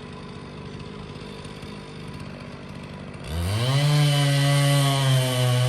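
Two-stroke chainsaw idling with a fast, even patter, then revving sharply about three seconds in and running steadily at full throttle. Its pitch sags a little near the end, as in felling a large ponderosa pine.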